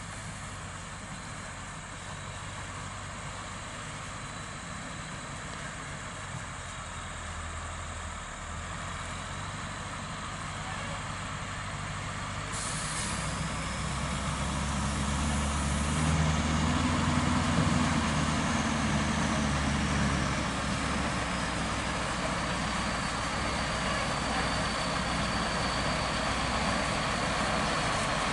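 Scania tractor unit's diesel engine working slowly under a heavy lowbed load, growing louder as the truck draws near. A hiss of air from the brakes comes about halfway through.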